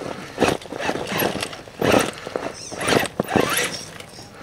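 Electric scale RC crawler truck's motor and geared drivetrain whining in about four short bursts of throttle as it climbs steep rock.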